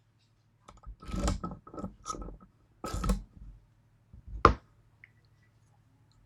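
A metal lock and picking tools being handled: several short scraping, rattling bursts in the first three seconds, then a single sharp click about four and a half seconds in.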